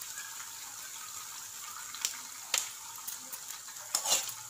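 Spices sizzling steadily in hot oil in an aluminium kadai: a tempering of mustard seeds, chana dal, cumin and asafoetida. A couple of sharp clicks partway through, then a metal spoon clinks and scrapes against the pan as it is stirred near the end.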